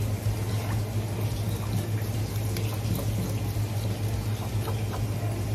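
Water running, over a steady low hum, with a few light clicks.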